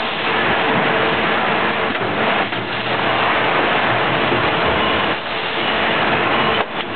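Extrusion blow molding machine for plastic bottles running: a loud, dense hissing mechanical noise that dips briefly a few times.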